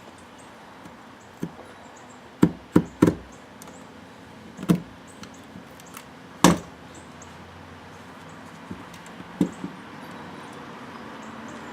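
Irregular knocks and clunks from handling a cut-open oil filter's metal parts, about seven in all, with three loud ones close together two to three seconds in and another strong one midway.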